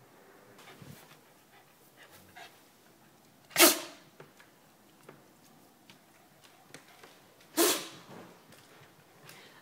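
Japanese Spitz dog sneezing during a sneezing fit: two loud, sharp sneezes about four seconds apart, with a few fainter short sounds around them.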